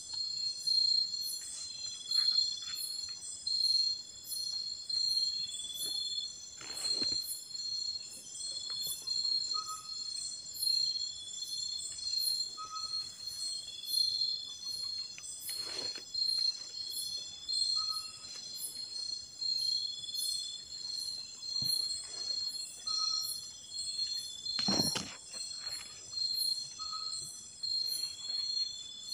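Night-time tropical forest insect chorus: crickets and other insects trilling steadily at a high pitch, with fast regular ticking on top. A short single note repeats every second and a half or so, and a few brief rustling thumps come through, one a quarter of the way in, one about halfway and one near the end.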